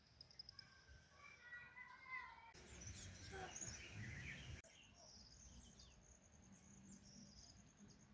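Faint outdoor ambience with birds chirping and calling. A high, pulsing trill comes in about halfway through.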